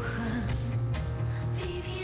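Theme-song music between sung lines: the instrumental backing of a Spanish-language ballad.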